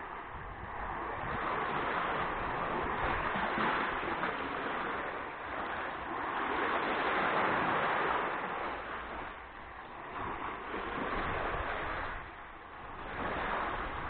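Sea waves washing onto the shore, the wash swelling and falling away every three to four seconds.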